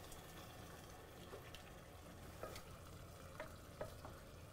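Faint stirring of a wooden spatula through rice, chicken and water in a pot, scraping the bottom to lift the browned bits as the pot is deglazed, with a few light clicks of the spatula against the pot.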